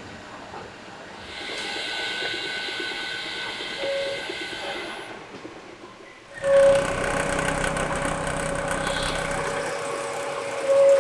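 Noodle-making machinery running: a dough mixer tumbling crumbly sweet potato dough with a steady whine, then, about six seconds in, the louder, steady run of dough-sheeting rollers. A short loud tone sounds when the louder machine starts and again near the end.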